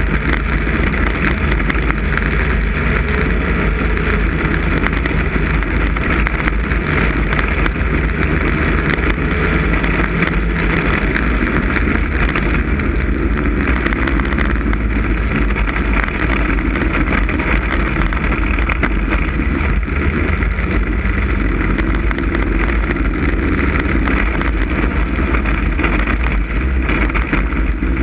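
Snowmobile engine running steadily at speed, with wind buffeting the microphone.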